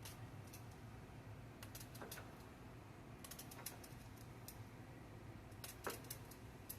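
Knife cutting vegetables on a cutting board: faint, irregular light clicks, with a quick run of them about halfway through.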